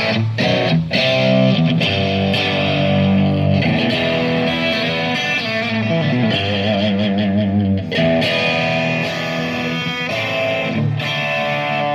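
Amplified electric guitar played through effects, holding sustained notes with a wavering vibrato bend about halfway through, as in a band sound check.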